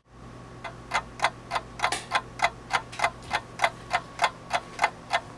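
Clock ticking steadily, about three ticks a second, beginning about half a second in, marking time while the cookies bake.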